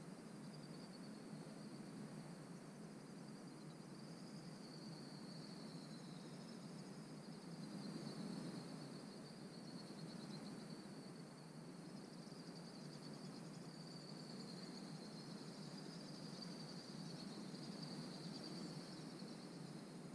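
Faint, steady insect chorus: a high, wavering buzz that goes on without a break, over a low background rumble.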